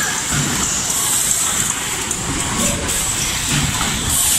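Automatic book-type box assembly machine running in a factory: steady mechanical noise with a constant high hiss over a low rumble.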